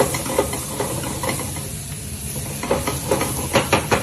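Finely chopped carrot, onion, leek and garlic sizzling in hot oil in a pot, with a steady hiss and a cluster of sharp clicks about three seconds in, the loudest moments. The sizzle shows the pot is properly hot.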